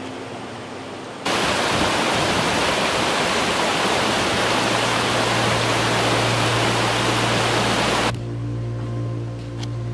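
Shallow rocky mountain stream rushing over stones: a steady, full hiss of running water that starts abruptly about a second in and cuts off near the end, where soft ambient music with low held tones takes over.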